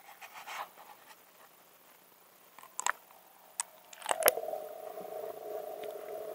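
Muffled knocks and clicks of an action camera's sealed waterproof housing being handled, heard from inside the case, with sharp clicks about three seconds in and a louder cluster just after four seconds. After the last clicks a steady, even hum of two close tones sets in and holds.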